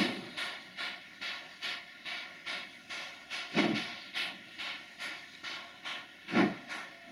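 Exhaust beats of a JS class 2-8-2 steam locomotive working slowly and hard, about two and a half chuffs a second, with the hiss of steam between them and three heavier, deeper beats standing out. The locomotive is struggling to get away from the coal loading point.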